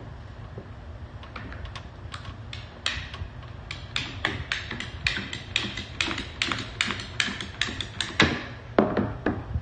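Ratcheting PVC pipe cutter clicking as its handle is squeezed again and again to work the blade through a plastic pipe. The clicks come about three or four a second from about three seconds in, with a couple of heavier knocks near the end.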